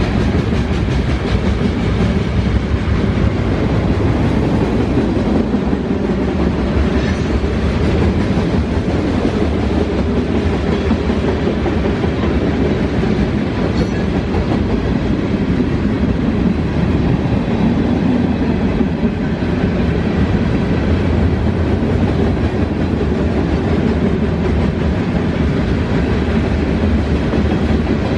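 Freight cars of a Norfolk Southern manifest train rolling steadily past, their wheels clicking over the rail joints.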